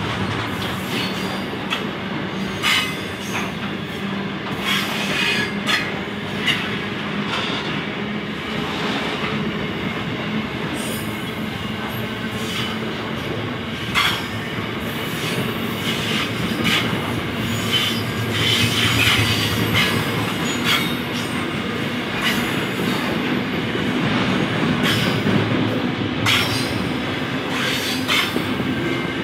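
Freight train's loaded container wagons rolling past: a steady rumble of wheels on rail, broken by irregular clicks and knocks as the wheels cross rail joints. At times the wheels squeal with a faint high ring.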